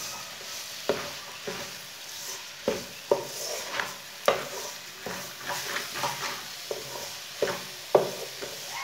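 Wooden spoon stirring grated carrots with sugar in an aluminium pot, knocking and scraping against the metal in irregular strokes about two a second, over a steady sizzle of the carrots frying in oil.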